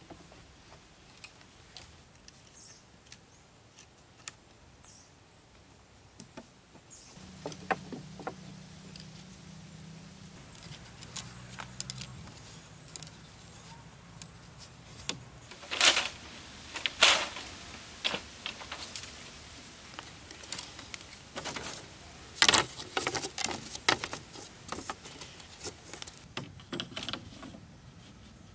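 Bamboo poles and cut bamboo sections being handled and lashed onto an arched frame: scattered light clicks, taps and rustles, with a few sharp knocks of bamboo striking bamboo about sixteen, seventeen and twenty-two seconds in. A faint low hum runs through the middle.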